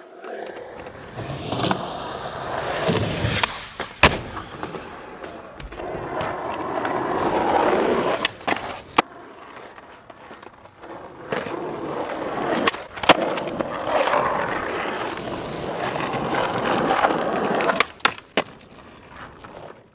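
Skateboard wheels rolling on concrete and asphalt, swelling and fading as the skater pushes and rides. Sharp clacks of the board popping and landing tricks come about four seconds in, twice around nine seconds, twice around thirteen seconds and twice near the end.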